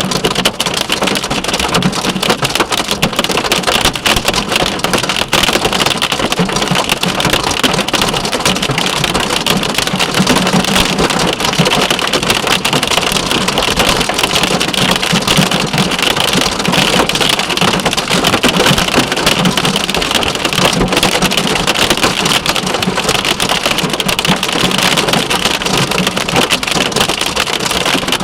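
Hail and heavy rain beating on a car, a dense, steady patter of countless impacts.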